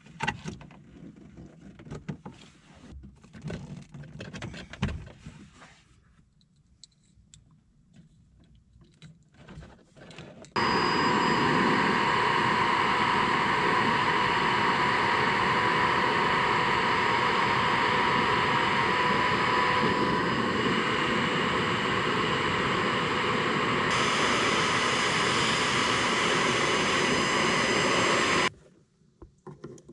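Faint clicks of wires being handled, then an electric heat gun switched on about a third of the way in. It blows steadily, a loud hiss with a whine running through it, and its tone brightens a few seconds before it cuts off shortly before the end. It is shrinking heat-shrink butt connectors on spliced trailer-light wiring.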